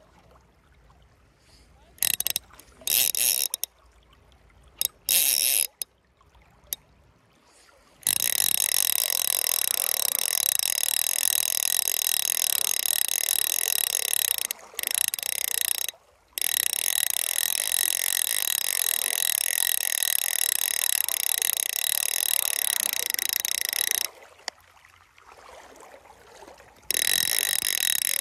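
Fly reel's click-and-pawl drag buzzing as line runs off the spool, starting and stopping abruptly: several short bursts, then a long unbroken run of about sixteen seconds with two brief pauses, and another run near the end.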